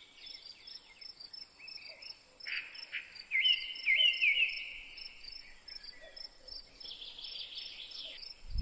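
Outdoor ambience of insects: a steady high-pitched trill with small repeated chirps about four times a second, and a bird calling in a few quick rising-and-falling phrases from about two and a half to four and a half seconds in, the loudest sound here.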